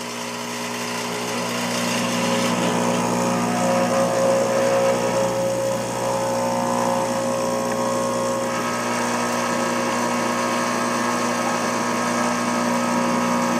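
Rancilio Silvia espresso machine's vibratory pump buzzing steadily as it pushes water through the coffee puck to pull an espresso shot. It grows a little louder over the first couple of seconds, then holds level.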